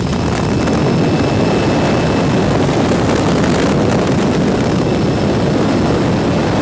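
Loud, steady rush of wind through a light aircraft's open jump door, mixed with the drone of its propeller engine.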